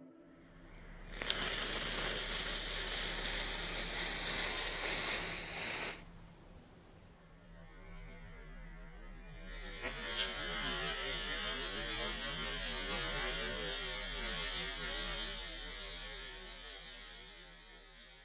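Fuse coated with pyrotechnic prime burning and throwing sparks, with a steady hiss. The hiss starts about a second in and cuts off abruptly about six seconds in, and a second hiss swells about ten seconds in and slowly fades. A low steady hum runs underneath.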